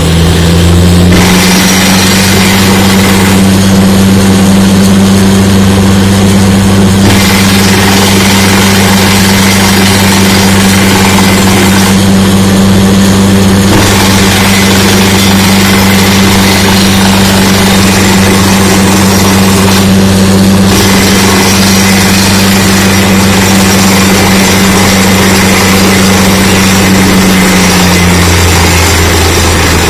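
Truck-mounted DTH drilling rig running under load while drilling, its diesel engine and air compressor giving a loud, steady drone over a dense rushing noise. The engine note steps up slightly about a second in and drops back near the end.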